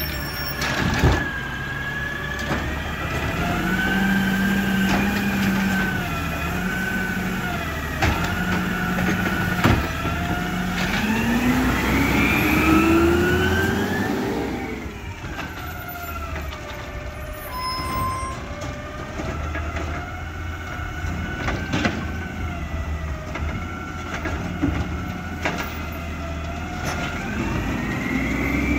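Peterbilt 320 side-loader garbage truck with a Dadee Scorpion body, its compressed-natural-gas engine running with a whine that rises and falls in pitch, and a few sharp knocks in the first half. About ten seconds in the whine climbs steadily as the truck pulls away and drives past, then the sound settles lower as it moves off.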